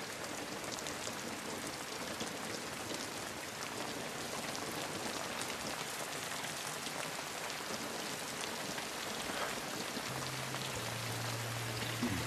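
Steady rain falling and pattering, a dense even hiss with many small drop ticks.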